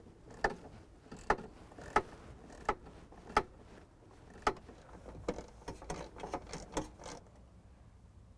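Socket wrench with a 9/32 socket ratcheting as it backs out radio mounting screws: single sharp clicks roughly every 0.7 seconds, turning into a quicker run of lighter clicks about two thirds of the way through.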